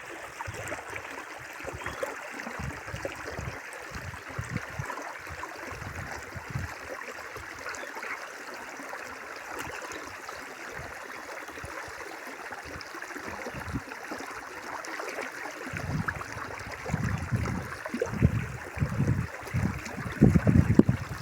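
River water babbling in a steady rush. From about three-quarters of the way in, wind buffets the microphone in low, uneven gusts that grow stronger near the end.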